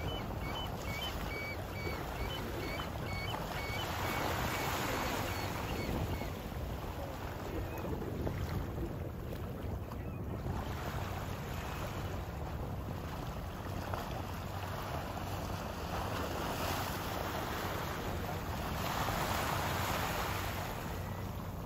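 Steady outdoor waterside ambience: wind on the microphone and water, with a low rumble underneath. A run of short, high chirps sounds in the first three seconds.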